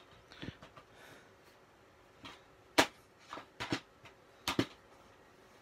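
Plastic DVD cases clacking and tapping as they are handled: a handful of sharp clicks, the loudest about three seconds in and a quick pair near the end.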